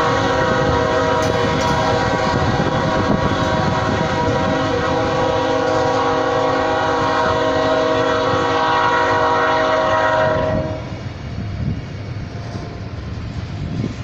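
Diesel locomotive air horn sounding one long, steady multi-note blast that cuts off about ten and a half seconds in, leaving the rumble of the passing train.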